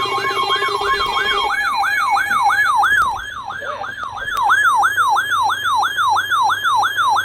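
Weather alert radio receiver sounding its alarm for a flood warning: a rapid whooping siren tone that sweeps about three times a second, each sweep a quick rise and a slower fall. A steady tone sounds with it for the first second and a half, and the siren cuts off sharply at the end.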